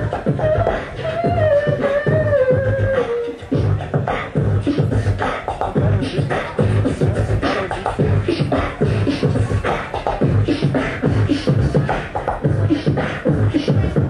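Several beatboxers doing vocal percussion together: a held pitched vocal line slides down and stops about three seconds in, over a steady mouth-made kick-and-snare beat that carries on alone after it.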